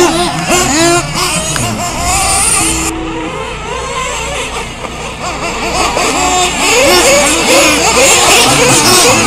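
Several nitro RC truggy engines revving up and down as the trucks race around a dirt track, their high-pitched whine rising and falling in overlapping sweeps. The sound changes abruptly about three seconds in.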